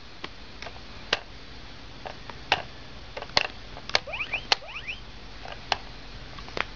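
Irregular sharp plastic clicks and taps from a baby handling a toy laptop's mouse and keys, about seven in all, with a few faint high chirps near the middle.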